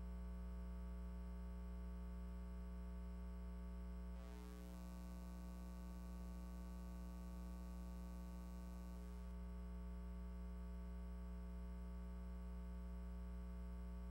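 Steady low electrical hum with a ladder of overtones. A hiss comes in about four seconds in and drops out about five seconds later.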